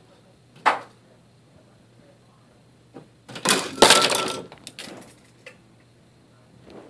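A pen holder full of pens and scissors knocked off a counter by a cat, clattering down onto a desk in a loud jumble of impacts about three seconds in, with a brief metallic ring. A single sharp knock comes a little under a second in, and a few small taps follow the crash.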